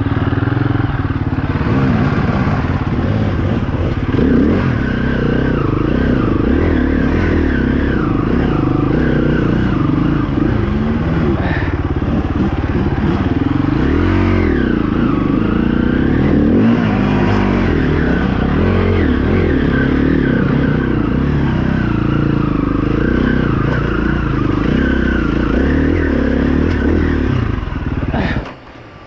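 KTM enduro dirt bike engine revving hard up and down under load on a hill climb, its pitch repeatedly rising and falling. The sound drops away suddenly near the end.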